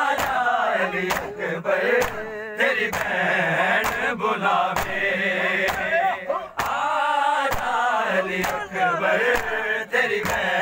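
A group of men chanting a noha lament together, with sharp hand slaps about every 0.7 s keeping the beat: the chest-beating of matam.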